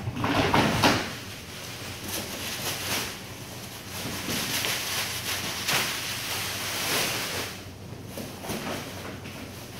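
Plastic crates knocking and clattering in the first second, then a plastic bag rustling, over a steady low hum.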